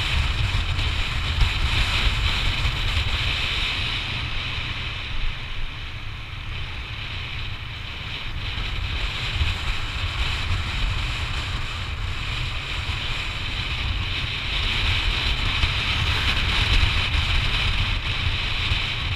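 Wind buffeting the camera's microphone on a moving Yamaha NMAX scooter, a steady rushing rumble with the riding noise of the scooter underneath. It eases a little about six seconds in and builds again.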